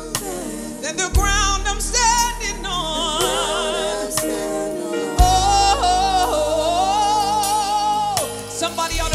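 Live gospel worship music: a lead singer with a wide vibrato sings long held notes, backed by other singers and a band with bass and drums. A deep bass note comes in about a second in and again about five seconds in.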